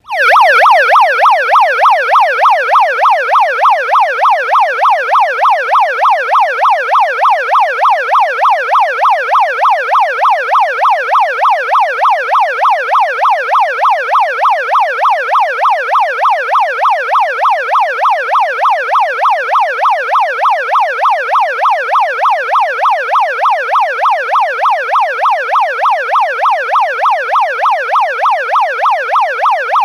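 Built-in electronic siren of an Asahi Denki Kasei hand megaphone blaring through its horn speaker, sweeping rapidly up and down in pitch without a break. The tone is loud and harsh, with no low end.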